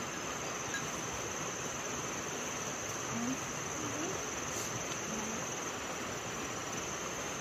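Steady insect chirring: one constant high-pitched tone over an even background hiss, with a few faint brief pitched sounds in the middle.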